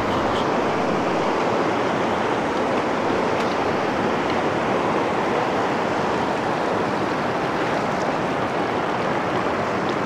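Rapids of the Tongariro River rushing over stones in shallow water close to the microphone, a steady, unbroken whitewater noise.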